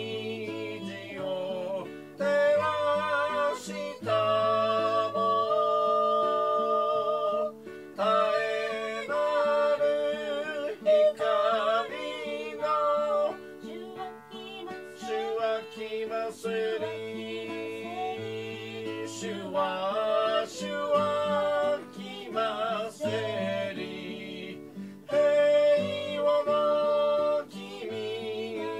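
A hymn sung to acoustic guitar accompaniment, the sung lines wavering in vibrato over steady bass notes, with short breaks between phrases.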